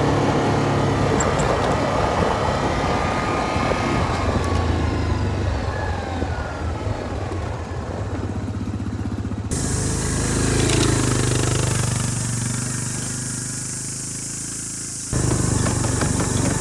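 A motor vehicle engine running steadily. Its sound changes abruptly about halfway through and again near the end.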